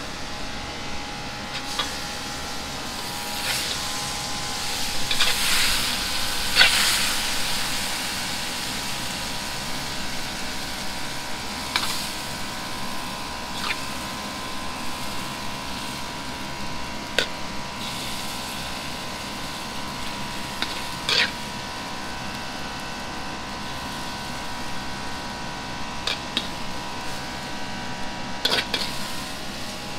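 Steady mechanical drone of a commercial kitchen, with a few steady tones in it. Scattered sharp clinks of a metal wok ladle against plates and bowls break through it, and there is a quick run of clinks near the end.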